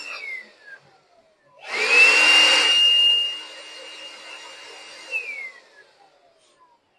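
Small electric blower blowing old coffee grounds out of the inside of an EK43 coffee grinder. Its motor whine winds down at the start, then spins up again about a second and a half in with a loud rush of air. It then runs quieter and winds down in pitch about five seconds in.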